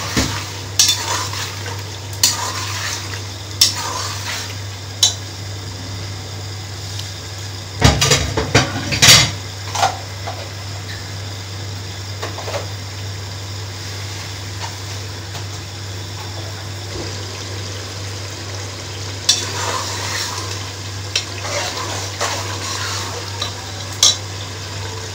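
Steel spoon stirring a wet mutton masala in an aluminium pot, scraping and clinking against the pot in bursts, loudest about eight seconds in and busy again near the end, with a quieter spell between. A steady low hum runs underneath.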